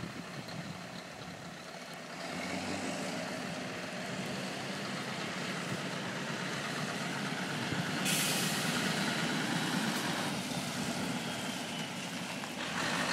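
Scania R620 truck's V8 diesel engine running, growing louder about two seconds in. A sudden loud hiss starts about eight seconds in.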